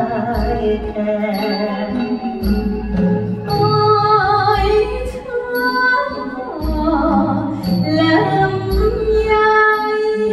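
An orchestra with strings and brass playing a Thai song, with a singing voice over it and a low beat about every one and a half seconds.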